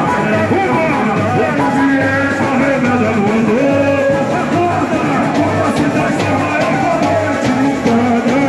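Samba-enredo sung live by a group of male voices over amplified accompaniment, with a steady low drum beat about one and a half times a second.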